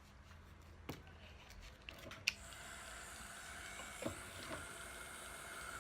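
A few faint handling clicks, then a heat gun switched on with a click a little over two seconds in. Its fan then runs with a steady whine and blowing hiss as it warms the back of the iPhone to soften the adhesive.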